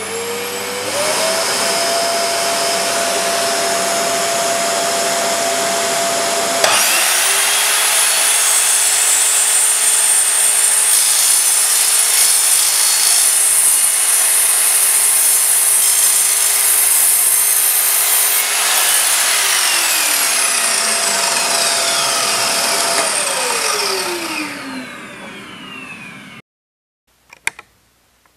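A shop vacuum runs as dust extraction. About seven seconds in, the Evolution R210SMS sliding mitre saw starts abruptly, and its 20-tooth multi-material blade cuts through a block of fir with metal embedded in it, which the blade reaches without slowing. The saw then winds down with a falling whine, the vacuum stops a few seconds later, and a couple of clicks follow near the end.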